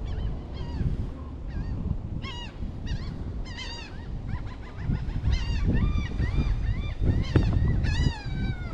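Geese honking over and over in short calls, thickest in the second half, over a low rumble of wind on the microphone.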